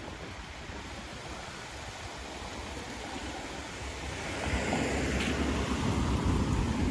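Gusty wind rushing over the microphone and through the trees, growing stronger about four and a half seconds in.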